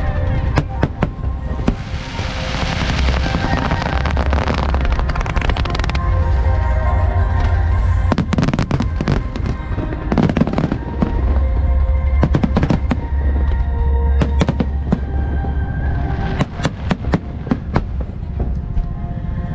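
Aerial fireworks going off in a display: repeated sharp bangs, with a dense crackling shower a couple of seconds in and clusters of bangs near the end. Music with a steady low bass plays underneath.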